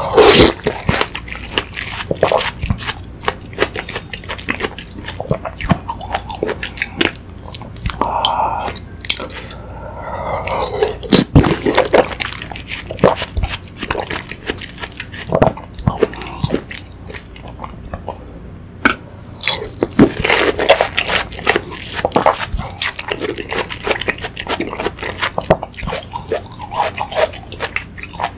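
Close-miked eating of watermelon hwachae: wet chewing and slurping of watermelon chunks in sweet fruit punch, with frequent short clicks as the spoon scoops against the plastic bowl.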